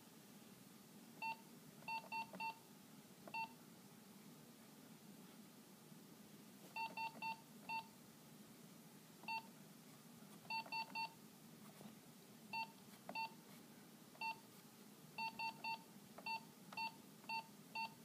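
Short key-press beeps from the keypad of a Brother MFC-7860DW printer, some single and some in quick runs of two to four, as letters are typed by tapping the same number key several times (multi-tap text entry).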